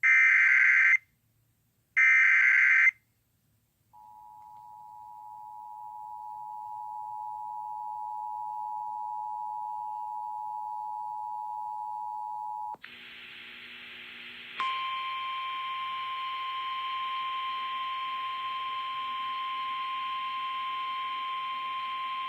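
Emergency Alert System tones: two loud one-second bursts of the SAME digital header, then the two-tone EAS attention signal fading in and holding steady for about nine seconds. At about 13 s it gives way to hissy relayed weather-radio audio, and a second and a half later a single steady 1050 Hz warning alarm tone comes in over the hiss and runs about nine seconds.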